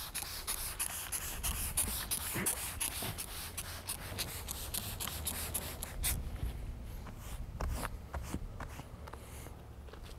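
Trigger spray bottle squirting water onto a folded cotton sheet to dampen the layers, many quick squirts in a row, thinning out and getting fainter after about six seconds.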